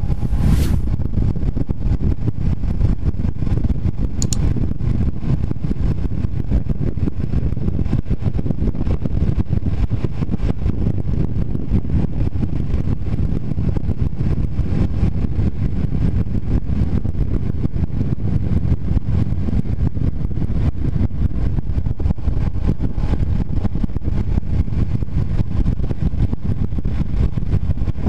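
A Honda CBR250R single-cylinder sport bike cruising at steady highway speed. Heavy wind rush on the onboard microphone runs over the engine and road noise as a loud, steady low rumble.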